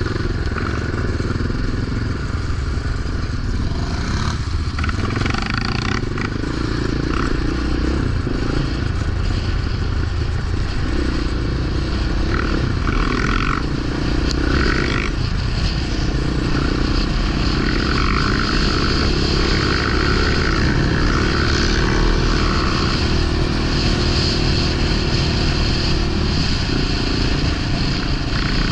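Yamaha Raptor 700 quad's single-cylinder four-stroke engine running continuously, its note shifting every few seconds with the throttle, with some clatter and scraping over it.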